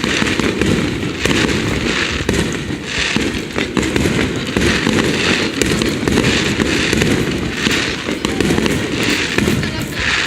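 Fireworks going off in a steady, dense barrage, with sharp cracks scattered throughout and a hissing swell about once a second.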